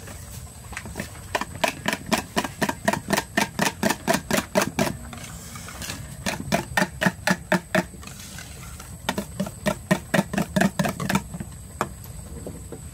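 Wire balloon whisk beating egg yolks into whipped egg whites in a stainless steel bowl, the wires clicking against the bowl about four to five times a second in three runs with short pauses between.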